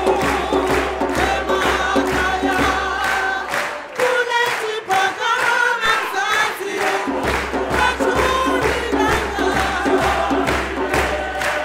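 South African church choir singing in full harmony, with the choir and audience clapping along in a steady rhythm.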